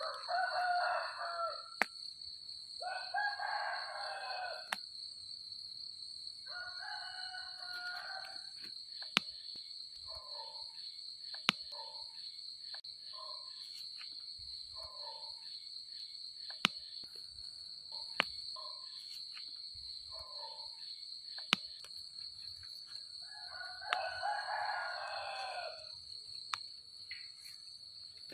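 Roosters crowing about four times, one long crow each time, over a steady high-pitched trill, with a run of shorter calls about once a second in the middle and a few sharp clicks.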